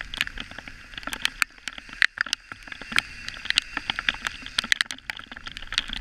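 Rain falling: irregular sharp taps of drops hitting the camera close up, several a second, over a steady hiss of rain.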